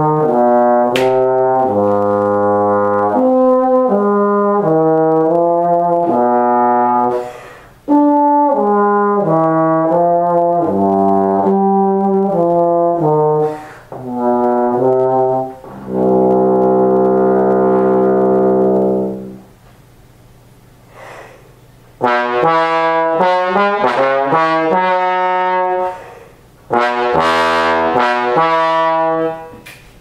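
Bass trombone, played with a Greg Black 1G mouthpiece, playing a phrase of separate notes that ends on one long held note; after a pause of about two seconds a second short excerpt starts. It is played some way from the microphone, so the room is heard around it.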